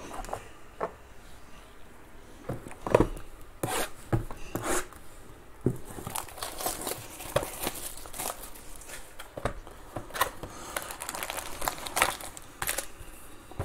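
Plastic shrink wrap torn and crumpled off a sealed trading-card box, with scattered taps and knocks of cardboard boxes being handled. The crinkling is densest near the end, as the box is opened.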